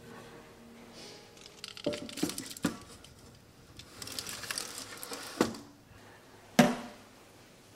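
Toaster oven's door and metal rack clinking while a foil tray of chestnuts is slid in, with foil crinkling, then the door shutting with a sharp clack, the loudest sound.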